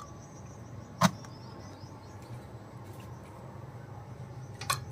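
An aluminium pot on a wire handle knocking as it is lowered into a clay tandoor and set down: one sharp knock about a second in, and a second, softer one near the end, over a steady low hum.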